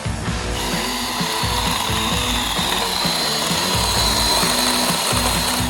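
A chainsaw running with a steady high whine, starting about half a second in and stopping near the end, over background music with a steady beat.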